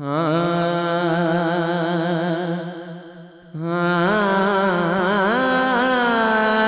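A man singing a naat into a microphone: a long drawn-out note that fades away about three seconds in, then a new sustained phrase with wavering, gliding ornaments.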